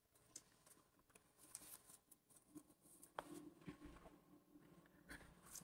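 Near silence with faint, scattered clicks and light rustles of handling.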